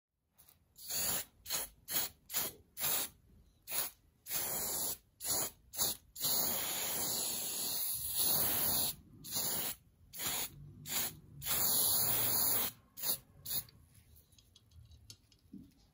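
Aerosol spray can hissing in quick short bursts, with two longer sprays of a couple of seconds each, stopping near the end.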